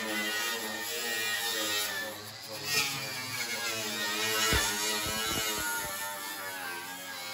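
Background music mixed with an electric angle grinder running against the steel body panel, stripping paint.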